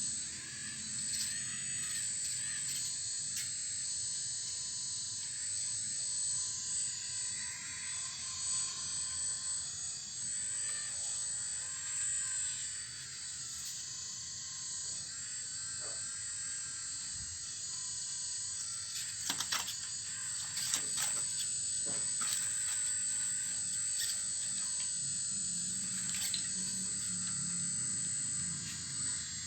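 Full-metal RC excavator running, its small electric motors giving a steady high whine, with a cluster of sharp clicks and knocks about two-thirds of the way through as the bucket works rock and soil.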